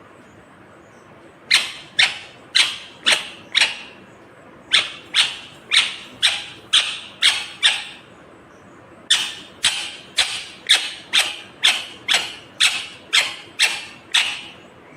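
Indian ringneck parrot calling: three runs of short, loud, shrill calls, about two a second, with brief pauses between the runs.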